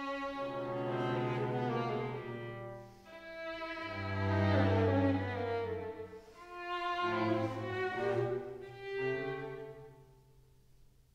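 String quartet of two violins, viola and cello playing classical music live, in bowed phrases that swell and fade over the cello's low notes. The sound dies away almost to nothing near the end.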